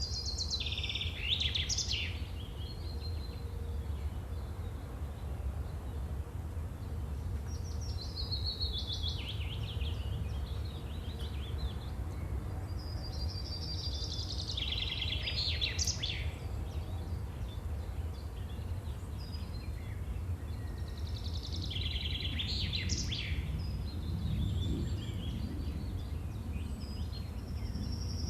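A songbird singing the same short phrase over and over, about every six or seven seconds: a high held note dropping into a lower rattling trill. A steady low rumble runs underneath.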